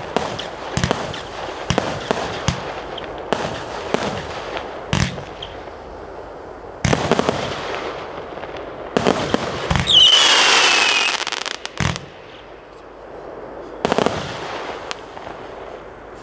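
Weco Beatmania category 2 compound firework cake firing: a quick series of shots and bursts with crackling between them. About ten seconds in, a loud hissing effect with a falling whistle lasts about a second, followed by a few last bursts.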